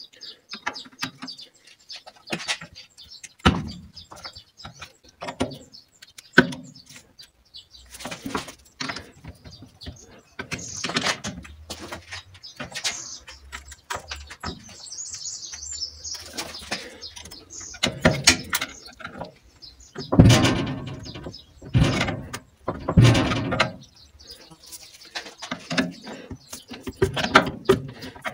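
A screwdriver and pry bar prising apart the two glued halves of a 1.9 MultiJet intake manifold clamped in a bench vise: irregular metal clicks, scrapes and knocks, with a run of heavier knocks about two-thirds of the way through. The non-factory glue on the seam is holding the halves together.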